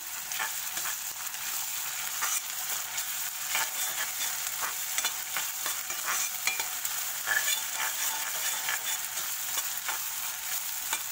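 Chopped onions and ginger-garlic paste sizzling in ghee and oil in a kadhai, with a spatula stirring and scraping across the pan again and again.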